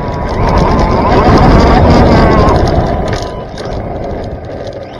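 Arrma Infraction 3S brushless RC car driving fast on asphalt, heard from a camera mounted on the car: motor and gear whine mixed with tyre and chassis rattle. It is loudest a second or two in, then eases off.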